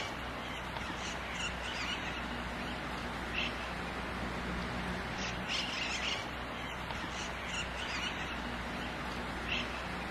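Birds calling in short, scattered chirps, a second or so apart, over a steady background hiss and low hum.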